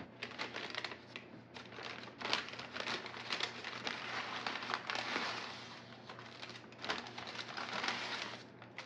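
Brown paper takeaway bag crinkling and rustling as hands handle and open it, with irregular sharp crackles of the paper.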